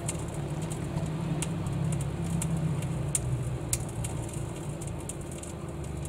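Microwave oven running under load with a steady low hum, broken by scattered faint sharp clicks.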